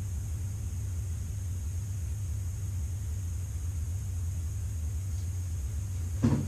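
Steady low rumble of room or background hum. Near the end comes a short knock as the dog rummages against the chair.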